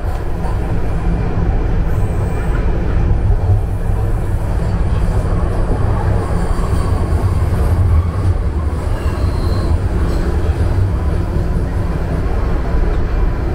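Steady low rumble of a TTC Line 1 Toronto Rocket subway train running between stations, heard from inside the car.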